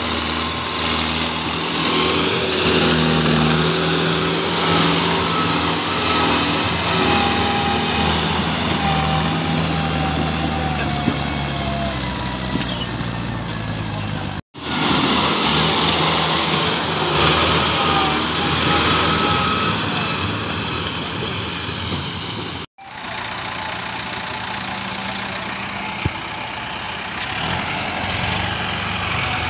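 Mahindra 585 DI tractor's diesel engine running under load as it hauls a heavily loaded trolley, its pitch rising and falling. The sound breaks off abruptly twice.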